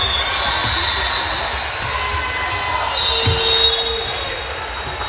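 Indoor volleyball play on a gym court: a ball thumping, with a low thud about three seconds in, and shoes squeaking on the floor, over the chatter of voices in the hall.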